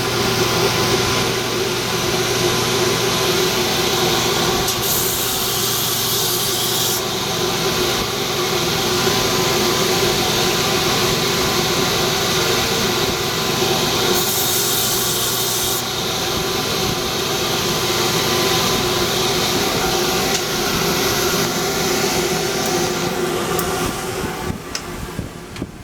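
Electric sanding machine running steadily while a micarta knife handle with a pivot bushing is ground on it. A harsher hiss comes in twice, for about two seconds each, as the piece is pressed to the abrasive, and the machine winds down near the end.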